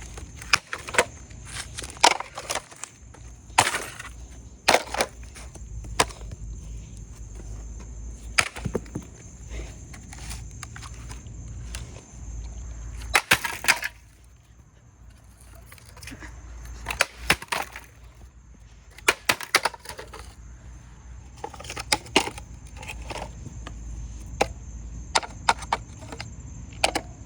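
A Roomba robot vacuum being smashed: repeated sharp, irregular strikes on its plastic body, coming in clusters, with a pause of about two seconds around the middle.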